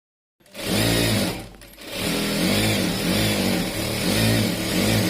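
Electric sewing machine running at speed, easing off briefly about a second and a half in and then running steadily again.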